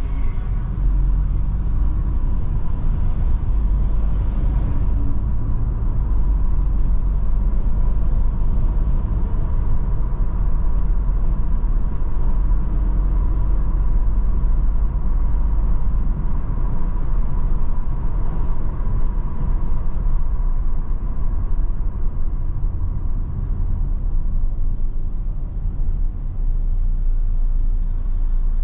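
Steady low rumble of a car driving on a paved road: engine and tyre noise, with a faint steady whine running through it.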